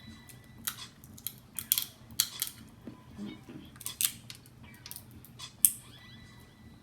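Snow crab leg shells being cracked open: a run of sharp, irregular cracks and snaps, the loudest one near the end.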